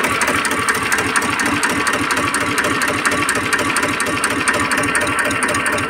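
TAFE 25 DI tractor's two-cylinder diesel engine idling steadily with an even, regular beat, freshly started and running smoothly, which the seller calls a very good sound.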